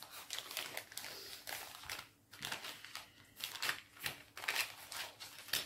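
Small sachet holding a diamond-painting starter kit crinkling and rustling as it is handled, in faint, irregular bursts.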